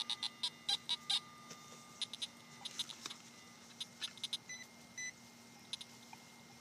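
Hand digger cutting and scraping a plug of soil, a quick run of short crunching scrapes. Over it run a metal detector's steady tone and two short electronic beeps a little past the middle.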